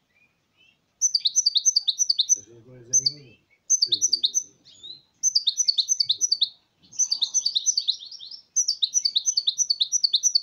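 European goldfinch singing: rapid twittering phrases of quick, high chirps, each run lasting a second or two, broken by short pauses.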